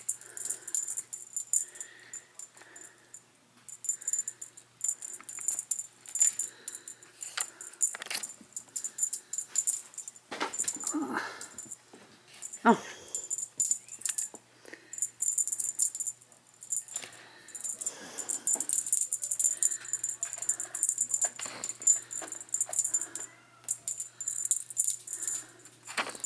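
Cat teaser toy jingling and rattling in quick bursts, on and off, as a Bengal kitten bats at it, with a few louder knocks about halfway through.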